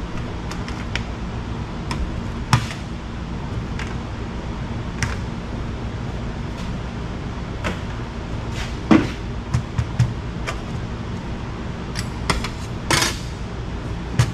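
Scattered clanks and clicks of a microwave oven's sheet-metal casing and parts being handled and pulled apart, the loudest knock about nine seconds in and a quick run of them near the end, over a steady low hum.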